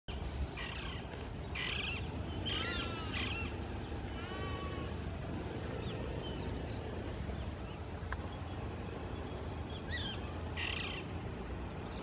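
A flock of parakeets calling: short harsh screeches and squawks mixed with bending, whistled calls, bunched in the first five seconds and again around ten seconds in. Under them runs a steady low rumble.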